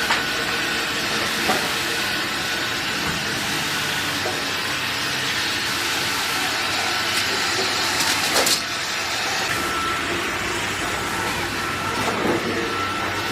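Sawmill machinery running: a steady, noisy hiss with a faint steady whine, and a short clattering burst about eight seconds in.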